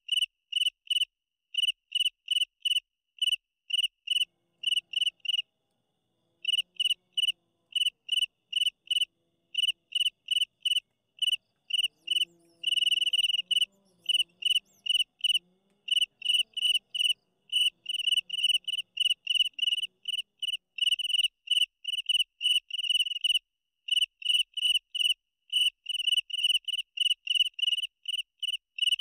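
Cricket chirping loudly and steadily, about three short high chirps a second, pausing briefly twice.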